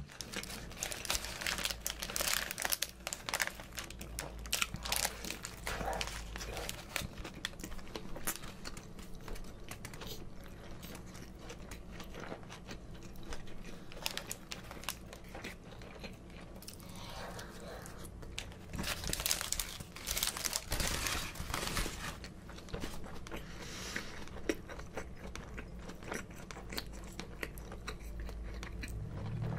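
Close-miked chewing and biting of a McDonald's Egg Bulgogi Burger, with its paper wrapper crinkling in the hands. There is a busier stretch of bites and wrapper noise about two-thirds of the way through.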